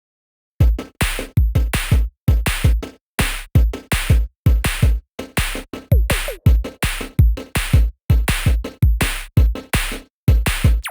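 Background electronic music with a steady, punchy drum-machine beat and heavy bass, starting about half a second in after a moment of silence.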